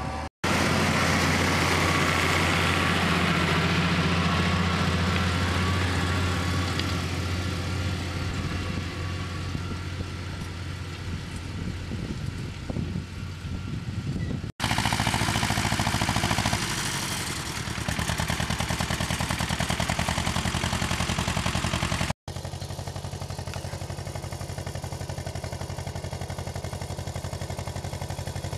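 Farm tractor diesel engines working in the field, in three clips joined by abrupt cuts. First a tractor pulling a reversible plough, its engine steady and then growing quieter; then another tractor with a plough whose engine note changes a couple of seconds after the cut; then a small tractor with a field sprayer running steadily.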